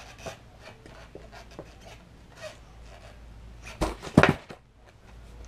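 Skateboard ollie attempt on carpet: light scuffs and taps of shoes and board, then two sharp knocks close together about four seconds in as the board is popped and comes back down.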